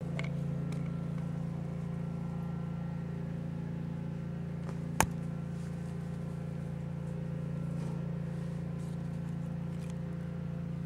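Steady low mechanical hum at an even pitch, with one sharp click about halfway through.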